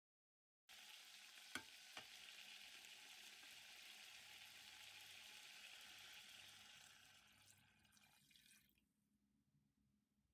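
Chunks of meat sizzling faintly as they brown in the inner pot of an electric pressure cooker on its sauté setting, with two light knocks about a second and a half in. The sizzle fades away over the last few seconds.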